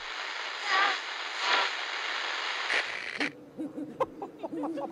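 Television static hiss that swells twice and cuts off suddenly about three seconds in. After it comes a quieter stretch with a low steady tone and short, high chirping calls.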